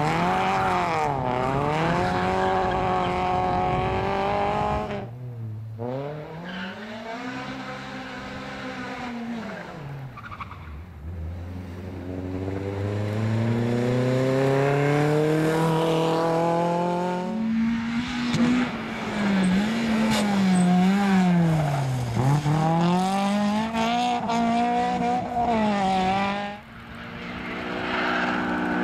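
Petrol engines of small hatchback cars revving up hard and dropping back again and again as they accelerate and brake through a tight tyre-marked slalom, one car after another. A Fiat Seicento comes first, then for most of the time a Renault Clio RS, then a Honda Civic near the end.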